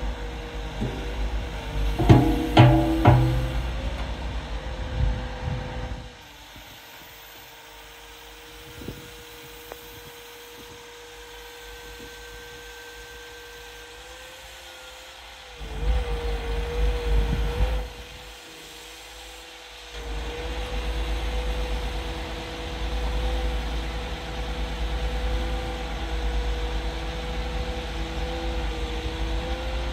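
Volvo EW160E wheeled excavator running while its boom and bucket are worked, with a steady whine from the machine and a few metallic clanks about two seconds in.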